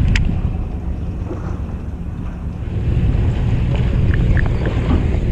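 Wind buffeting the microphone over the steady low rumble of a small fishing boat at sea, with choppy water washing against the hull. A single sharp click comes just after the start.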